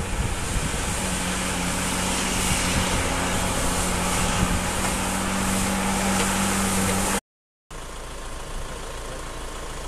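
A truck's engine running steadily as the truck drives through water on a flooded dirt road, over a rushing hiss. About seven seconds in the sound cuts off, and a quieter steady hum follows.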